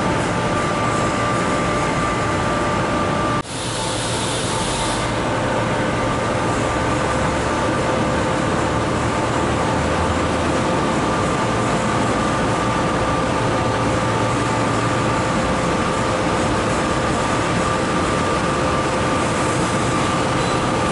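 Kaohsiung MRT Red Line metro train at the platform, with a steady running hum and a few high steady tones from its equipment. About three and a half seconds in, the sound breaks briefly. Near the end the train starts to pull away.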